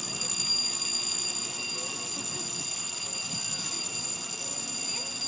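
A steady high-pitched whine made of several fixed tones, over a low wash of churning water and faint distant voices.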